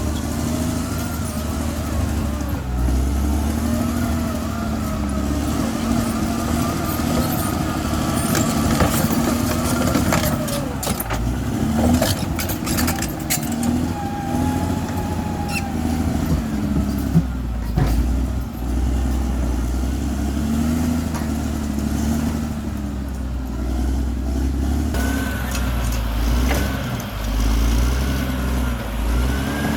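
Bulldozer's diesel engine working under load, its pitch rising and falling as it pushes, with several sharp knocks near the middle.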